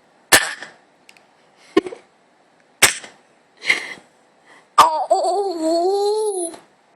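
Baby making funny mouth noises: a few sharp pops with a short breathy sound between them, then a long wavering coo of nearly two seconds, starting about five seconds in.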